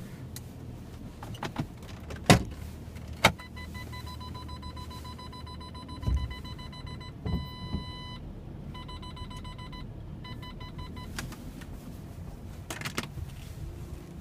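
Car parking sensor beeping in quick pulses, merging into a continuous tone for about a second in the middle, then pulsing again before it stops: the warning of an obstacle close to the car. Two sharp clicks come just before the beeping starts, over the car's low hum.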